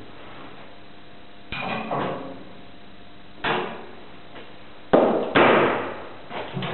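Metal tools and cutter parts clanking and knocking while a cutter is fitted to a spindle moulder's spindle: a handful of sharp metallic strikes with short ringing, the loudest two about five seconds in.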